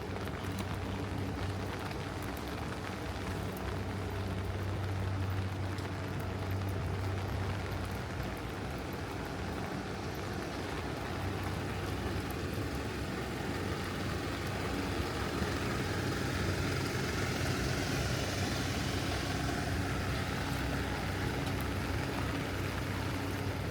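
City street traffic on wet roads in the rain: a steady low engine hum, with the hiss of tyres on wet pavement swelling and fading about two-thirds of the way through.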